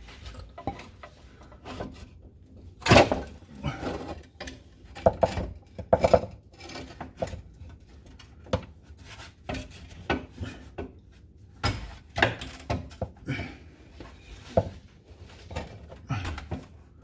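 Irregular metal clanks, knocks and scraping as a driveshaft with a new carrier bearing is worked back up into place under a car, with the loudest knocks about three, five to six and twelve seconds in.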